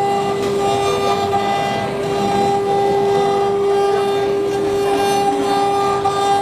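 Multi-head CNC woodworking router running its spindles, giving a loud, steady whine over a rough mechanical noise.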